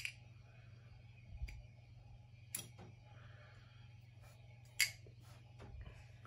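Alliance Designs Slim Pickens button-lock flipper knife being flipped open and snapped shut in the hand: several sharp metallic clicks of the blade locking and closing. The loudest clicks come at the start and about five seconds in.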